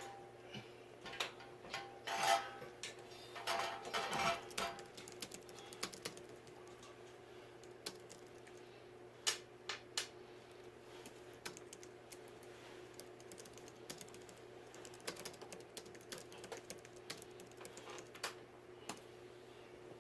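Scattered clicks and light knocks of parts being handled as a ceiling fan is hung on its mounting bracket, with a denser clatter about two and four seconds in. A faint steady hum runs underneath.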